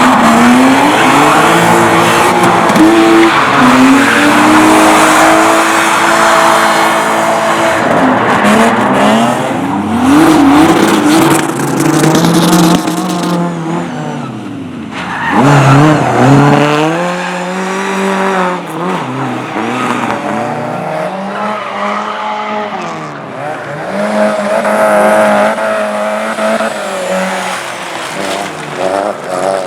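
Race cars driven hard around a tight course. The engines rev up and down again and again, with tyre squeal and skidding over them; the sound drops briefly about halfway through, then comes back loud.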